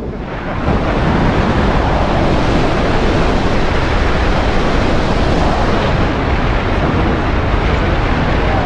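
Wind rushing over the camera microphone during a tandem skydive descent: a loud, steady noise with no speech, growing louder over the first second.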